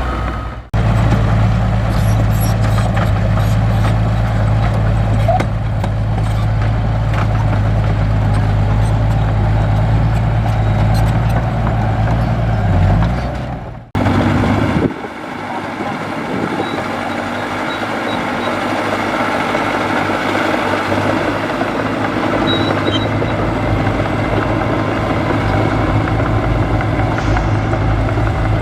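Heavy construction machinery's diesel engine running steadily with a deep, even drone. About halfway through the sound cuts abruptly to another stretch of machine noise with less bass and more rattle and hiss.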